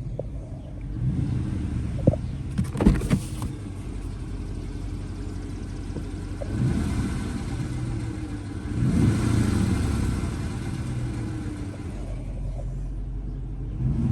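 Dodge Charger's Hemi V8 running, swelling twice as the gas is pressed and then eased off, with a few sharp knocks about two to three seconds in. An intermittent tick or rattle comes just after the gas is released, which the owner thinks could be injectors or lifters.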